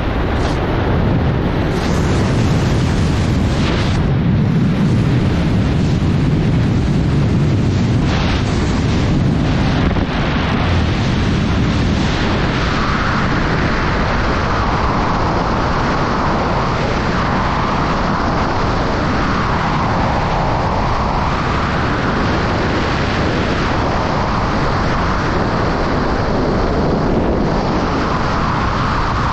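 Loud, steady rush of wind buffeting the microphone, without a break.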